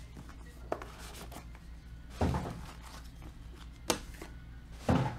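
Handling noise from a cardboard trading-card box being opened and a plastic-cased card being picked up: a few sharp clicks and two thuds, about two seconds in and near the end, over a low steady hum.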